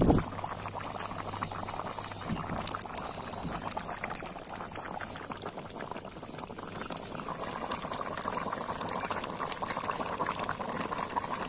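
Egg curry boiling hard in a large metal pan over a wood fire: a steady bubbling with many small pops, a little stronger in the second half. A brief loud knock right at the start.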